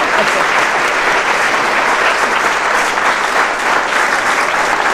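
Live audience applauding steadily, an even wash of clapping with no break.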